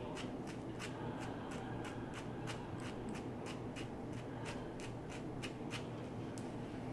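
Fingers parting and handling the wig's hair, a run of small crisp clicks about three a second that stop shortly before the end.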